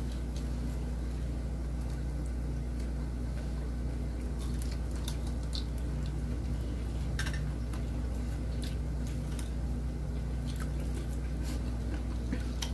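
People chewing food close to the microphone, with scattered small clicks of a spoon and utensils, over a steady low hum.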